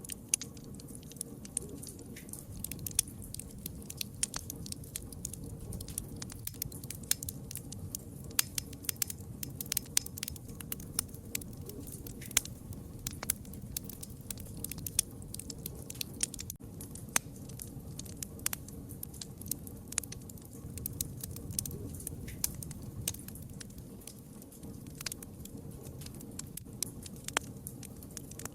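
Wood fire crackling: many irregular sharp pops and snaps over a low steady rumble of the burning fire.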